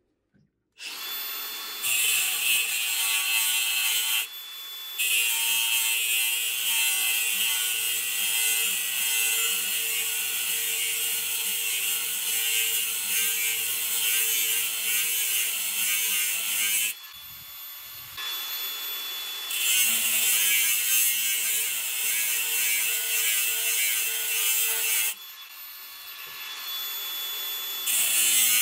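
Makita angle grinder with a cut-off disc cutting through saw-blade steel: steady grinding noise with a high whine. It starts about a second in, and the cutting eases off for a few seconds three times.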